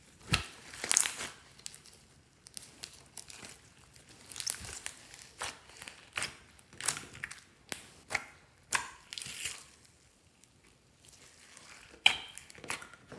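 Slime being kneaded, stretched and pressed by hand with mixed-in bits, giving an irregular string of short crackling, crinkling pops.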